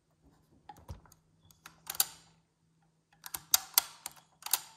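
Sharp mechanical clicks from the Nakamichi 600 cassette deck's pause mechanism being worked by hand: a few scattered clicks, a louder one about two seconds in, then a quicker run of clicks in the last second and a half. The mechanism has just been freed up from sticking.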